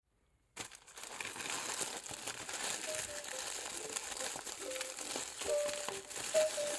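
Plastic courier mailer and wrapping crinkling and rustling in the hands as the mailer is pulled open and the boxed clock drawn out. It starts about half a second in.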